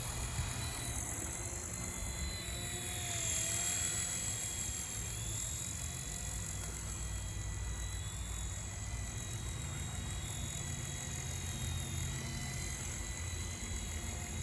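DEERC DE51 small RC helicopter in flight, its electric motors and rotors giving a steady high whine that wavers a little in pitch. Wind rumbles on the microphone underneath.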